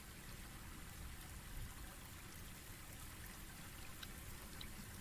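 Faint steady room tone: a low hum with hiss, and a few faint clicks.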